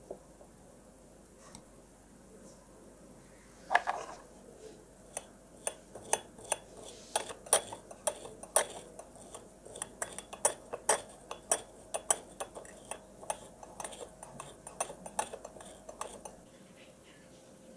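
A stiff brush scrubbing a Rolex 3035 movement plate in a glass dish of white benzene, with sharp irregular clicks and clinks of metal against glass. The clicking starts about four seconds in, comes several times a second, and stops shortly before the end.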